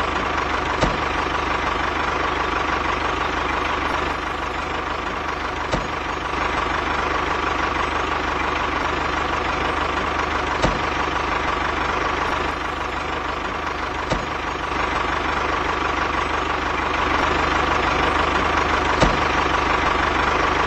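Tractor engine idling steadily, with a few faint clicks.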